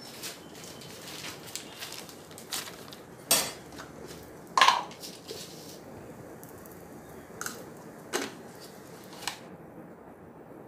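Kitchen clatter: a few sharp clinks of utensils against dishes and cookware over a faint steady hiss, the two loudest about three and four and a half seconds in.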